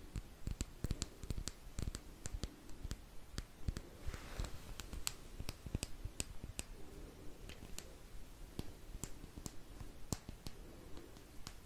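Close-miked handling of a makeup brush in front of a microphone: many small, irregular clicks with soft low thumps, and a brief soft swish about four seconds in.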